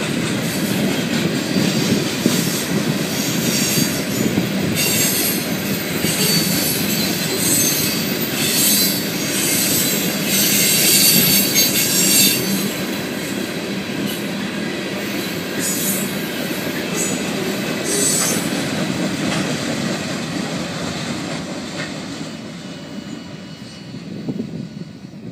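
Loaded ballast hopper cars of a freight train rolling past, their steel wheels clattering on the rails with repeated high squeals. The noise fades over the last few seconds as the end of the train moves away.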